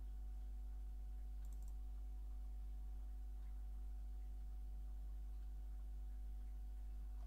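Steady low hum with a fainter steady higher tone above it, and a few faint computer mouse clicks, a short cluster about a second and a half in, as the page is scrolled.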